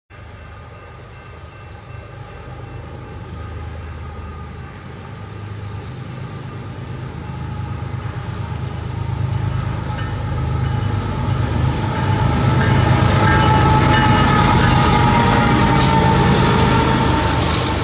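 BNSF freight train led by GE ES44AC diesel-electric locomotives approaching and passing close by: the locomotives' low engine drone and the rolling noise of wheels on rail grow steadily louder, loudest near the end as the lead units go past.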